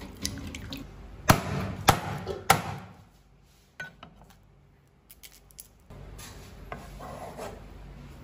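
Pork ribs being washed by hand in a stainless steel bowl of water: water sloshing, with three sharp knocks over about a second. After that it drops to a few faint taps and a low steady background.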